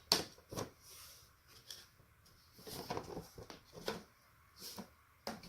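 Light knocks, clicks and scraping of wooden beehive frame parts being handled and slid together during assembly, a few scattered taps over several seconds.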